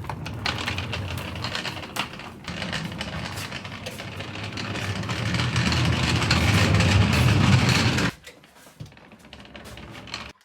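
Wheeled dolly rolling across the floor, its wheels giving a steady rattling clatter that grows louder and stops abruptly about eight seconds in.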